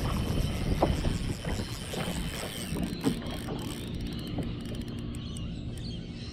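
Water slapping against a plastic kayak hull under a steady rumble of wind on the microphone, with a few light knocks.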